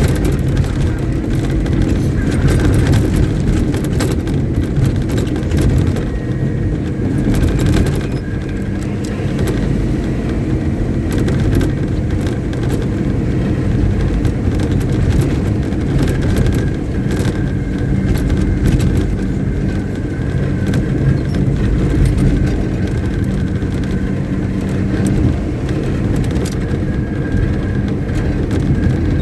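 Caterpillar 777D haul truck's V8 diesel engine (Cat 3508B) running steadily with a deep, even drone.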